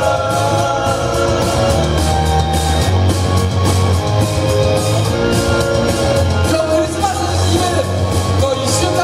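Live pop song: a male vocalist singing into a microphone over loud backing music with a steady bass pulse.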